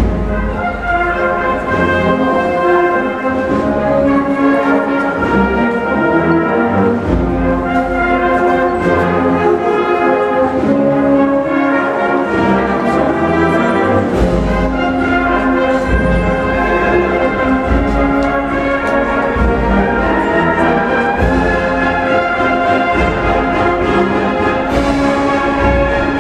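Brass band playing a Holy Week processional march, with sustained brass chords and melody over low drums.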